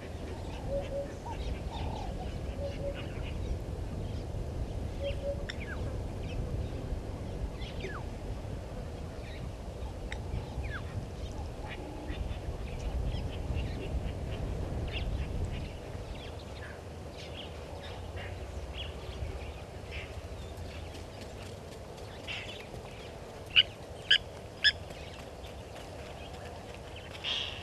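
Wild birds calling in the bush: scattered short, high chirps and whistles, with three loud, sharp calls in quick succession near the end. A low rumbling noise underlies the first half and stops abruptly about halfway through.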